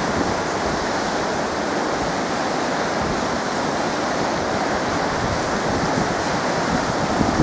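River water rushing below a hydro dam with its gates open, a steady unbroken rush of fast, high water.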